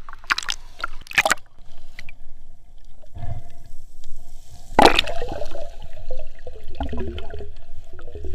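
Water splashing and bubbling as a snorkeler moves through the sea: a few sharp splashes in the first second or so, a louder splash about five seconds in, then wavering gurgling of bubbles.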